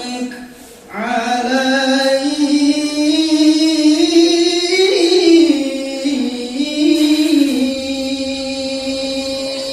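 A single voice chanting Arabic devotional verse in a melismatic style, holding long notes that slide slowly up and down, after a short pause for breath about a second in.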